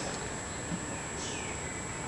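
A kitten's single faint, high mew about a second in, falling in pitch, over steady background hiss.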